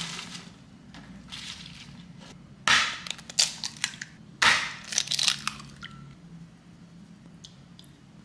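Two eggs cracked on the rim of a ceramic bowl, about two seconds apart: each a sharp knock followed by the crackle of the shell being pulled open. Lighter rustling of spinach leaves in a plastic container comes before them.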